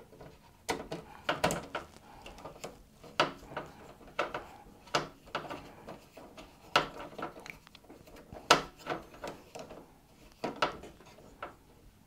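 Hand tool working a screw at a PC case's metal expansion-slot bracket, fastening an adapter card: a string of irregular metal clicks and taps, roughly one a second, some with a brief ring.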